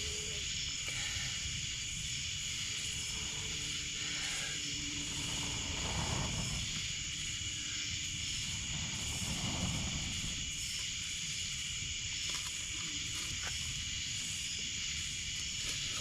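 Night insect chorus of crickets and katydids: a steady high-pitched trilling, with two short rushing swells of noise about six and nine seconds in.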